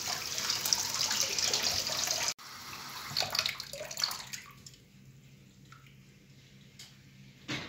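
Water from a kitchen tap splashing into a steel bowl as chicken gizzards are rinsed by hand, cutting off abruptly about two seconds in. Briefer splashes and the clink of a metal pot at a steel sink follow, then a single short knock near the end.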